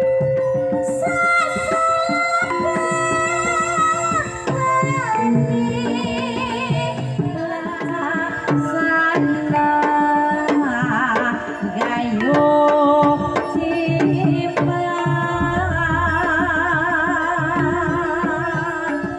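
A Javanese sinden singing a gending into a microphone, held notes with a wavering vibrato, over gamelan accompaniment with frequent hand-drum strokes and bronze gong tones.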